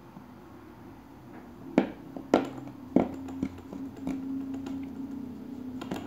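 Small serrated knife blade of a Gerber Vise keychain multitool cutting through plastic: four sharp cracks and snaps in quick succession, starting about two seconds in, over a faint low hum.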